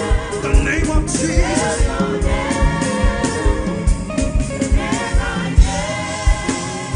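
Gospel praise music: voices singing together over a steady drum beat.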